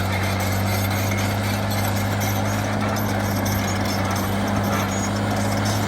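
A motor running steadily, with a constant low hum and an even hiss over it, unchanging throughout.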